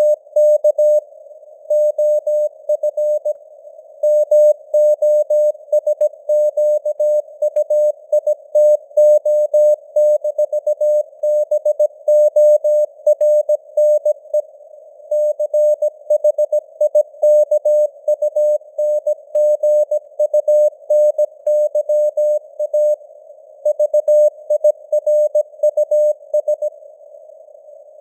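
Morse code (CW) sent at 17 words per minute: a single-pitch beep keyed on and off in dots and dashes, spelling out text. A soft hiss of simulated radio noise around the same pitch fills the gaps between the beeps.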